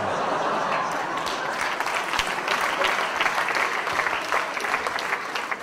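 Theatre audience applauding, a dense patter of many hands clapping that thins out and fades near the end.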